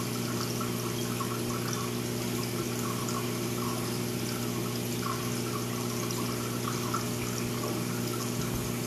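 Reef aquarium water circulation: steady trickling and splashing of water over a constant pump hum.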